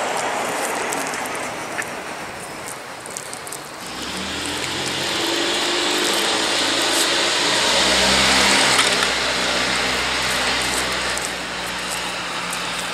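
A motor vehicle driving past on the road below, its engine and tyre noise swelling from about four seconds in to a peak around eight seconds, then fading. Light scrapes and clicks of wet cement being pushed around by hand sit under it.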